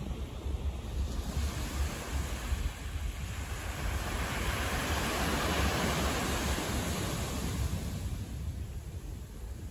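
City street noise, a wash of traffic that swells and fades in the middle as a vehicle passes, over a low rumble of wind on the microphone.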